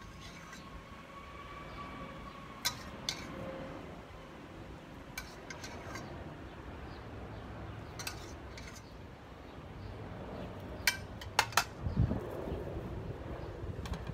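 Metal spoon clinking against a stainless steel pot as a glaze is spooned out, in scattered sharp clinks with a quick cluster of them about eleven seconds in. A dull thud follows near the end.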